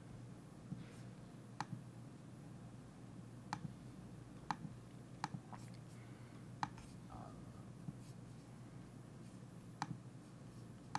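Faint, irregular clicks of a computer pointing device, about seven spread over the stretch, over a low steady background hum.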